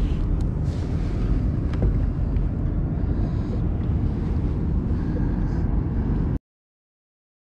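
Wind buffeting an action camera's microphone, a steady low rumble, with a few light handling knocks; it cuts off abruptly to silence about six seconds in.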